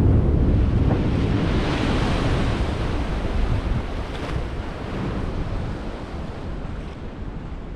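Icebreaker's bow breaking through sea ice and shoving the broken floe aside: a low rumble at first, then a rush of water and ice slush along the hull that slowly fades. Wind buffets the microphone.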